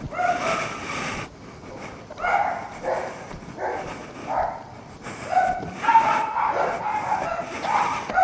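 A dog barking and yipping repeatedly, in short pitched calls about once a second.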